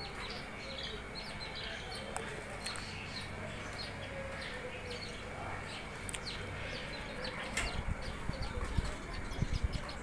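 Budgies chirping: a steady stream of short, high chirps, several a second. Low thumps join in over the last two or three seconds.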